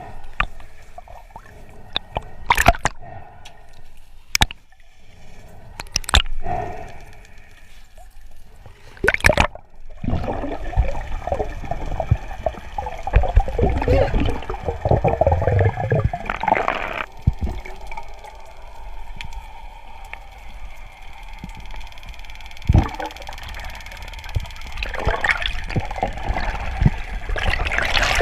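Seawater gurgling and sloshing, with scattered sharp knocks over the first several seconds and a louder, denser stretch of churning from about ten seconds in.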